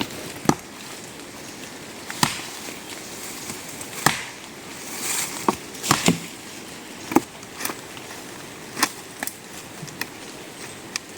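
A series of sharp knocks or strikes, about one every one and a half to two seconds, over a steady background noise.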